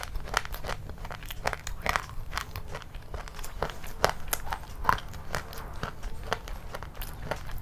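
Close-miked biting and chewing of crunchy food: a quick, irregular run of crunches and crackles, several a second.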